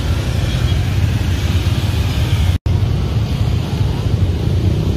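Busy street noise: a steady low rumble of passing motorbike traffic with faint crowd voices, which cuts out completely for an instant about two and a half seconds in.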